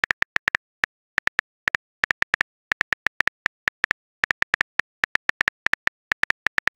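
Phone keyboard tap sounds, one short identical click per letter typed, coming in quick uneven runs of several a second with brief pauses between words.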